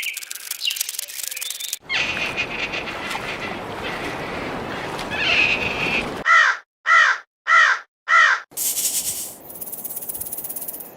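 Four loud, evenly spaced crow caws, about two thirds of a second apart, between stretches of hissing noise.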